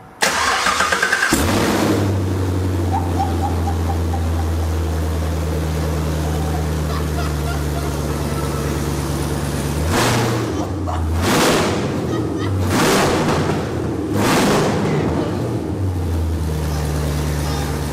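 2021 Camaro 1LE engine cranking on the starter and catching, first start on open long-tube headers with no cats or exhaust fitted. It settles into a steady, loud idle and is blipped four times between about ten and fifteen seconds in, then drops back to idle.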